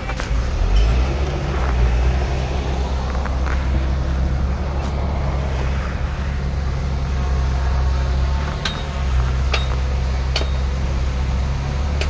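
Heavy diesel engine of earthmoving machinery running steadily with a deep drone. Three sharp metallic clinks come about two-thirds of the way in.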